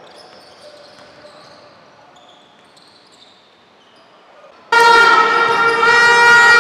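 Faint basketball court sounds with sneaker squeaks, then about three-quarters of the way through a loud, steady horn blast starts suddenly and keeps sounding.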